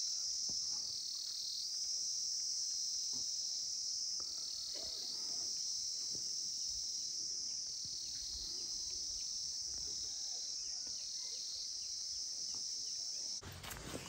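Steady high-pitched chirring chorus of insects, swelling slightly about every second and a half, that cuts off suddenly near the end.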